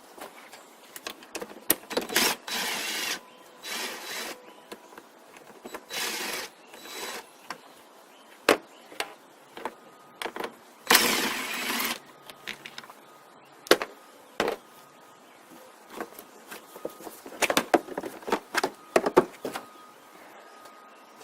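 Hand-tool work on the engine bay as the engine cover is taken off to reach cylinder 1: scattered clicks and knocks of tools and plastic parts, with several longer rasping bursts, the longest about eleven seconds in. The engine is not running.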